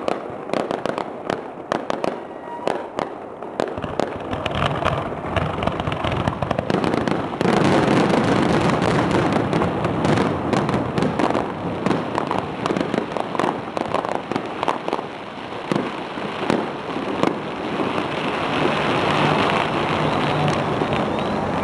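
Fireworks display: aerial shells bursting one after another with sharp bangs and crackling. About seven seconds in, the bursts thicken into a dense, louder barrage.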